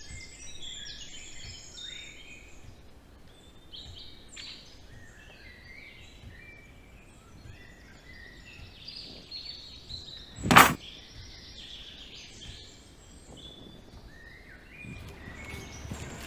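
Birds chirping and singing, many short high notes, with one loud sharp knock about ten seconds in.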